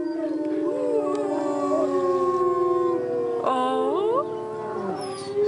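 Several wolves howling together, long held notes at different pitches overlapping, with a new howl rising in pitch about three and a half seconds in.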